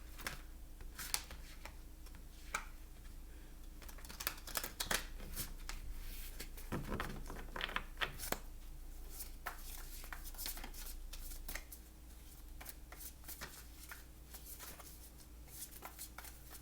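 A deck of tarot cards being shuffled by hand: an irregular run of soft card flicks and riffling clicks, busiest in the middle.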